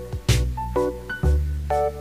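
Background music: a tune of short pitched notes over a steady bass line, with a sharp percussive hit about a third of a second in.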